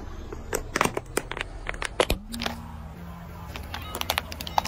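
Plastic toy guitar cracking and snapping under a slowly rolling car tyre: a string of sharp, irregular cracks over several seconds. A low steady hum sets in about halfway through.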